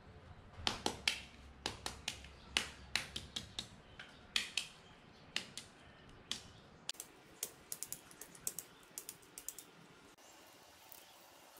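Pink-dyed century eggs being cracked and their shells picked off by hand: a run of irregular sharp crackling clicks that dies away near the end.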